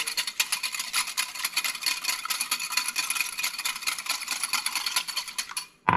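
Wire whisk beating an egg in a glass bowl: a rapid run of light clinks, several strokes a second, as the wires hit the glass. It cuts off just before the end.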